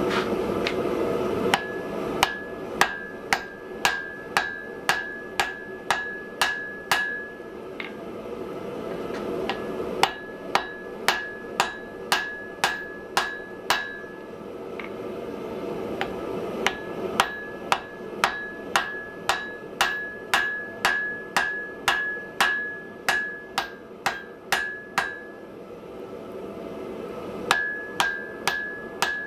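Hand hammer striking red-hot wrought iron on an anvil, each blow with a ringing note from the anvil. The blows come about two a second in four runs with short pauses between, over a steady low rushing noise.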